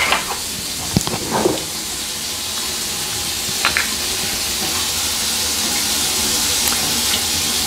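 Kitchen tap running steadily into a stainless-steel sink, an even rushing hiss, left running until the water comes through hot. A sharp knock about a second in and a light clink near the middle.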